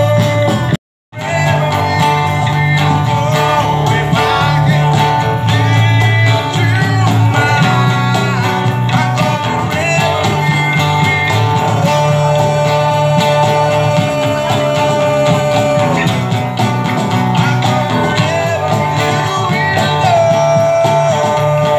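Small live band playing: a man singing into a microphone over strummed guitars and a box drum (cajón), amplified through a small PA speaker. The sound cuts out completely for a moment about a second in.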